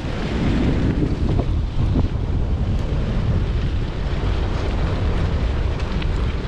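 Steady wind buffeting on the microphone of a camera moving at speed behind a dog team, a dense low rumble with no pauses.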